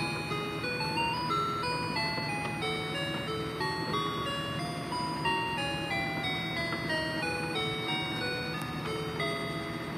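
Toy coin pusher playing its electronic tune: a continuous run of short, simple beeping notes stepping up and down.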